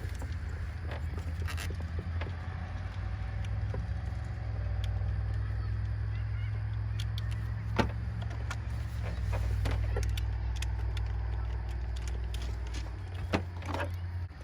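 2009 Honda Odyssey's 3.5-litre V6 idling steadily with a new spark plug in, as the cylinder misfire is being checked. The low drone stops abruptly near the end. A few sharp clicks sound over it, the loudest about eight seconds in.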